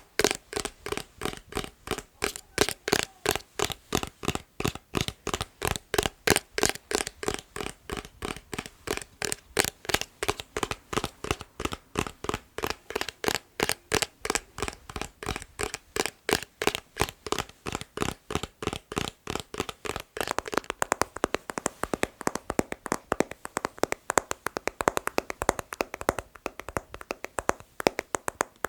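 Steady rhythmic tapping on a hard object at about three taps a second. Around twenty seconds in, it switches to a faster, lighter tapping with less treble.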